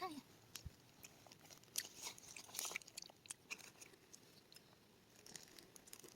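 A person chewing food, heard as faint, irregular little clicks and crunches.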